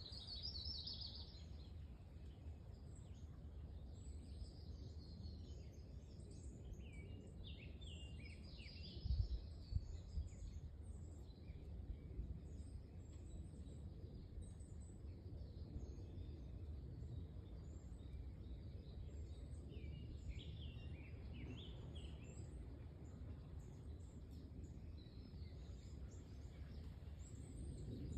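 Faint woodland ambience: songbirds calling on and off in short chirps and phrases over a steady low rumble. Two soft thumps about nine and ten seconds in.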